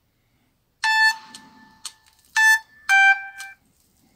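A Samsung Windows Mobile phone's speaker playing short ringtone previews while the ringtones are scrolled through. Three brief chimes come about a second in, at two and a half seconds and just after, each cut off after a fraction of a second, the last at a different pitch.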